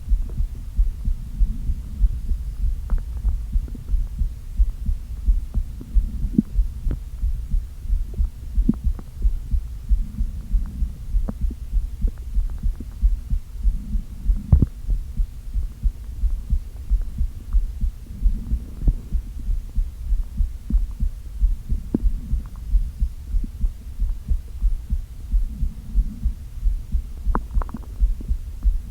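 Close-up sounds of an empty, hungry stomach: a steady, even pulse thumping low down, with occasional short gurgles and soft rumbles on top.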